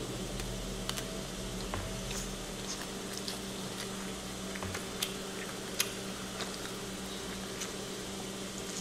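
Quiet eating and food-handling sounds: scattered faint clicks and soft squishes as a child picks at cooked prawns and lifts a corn cob, over a steady low hum.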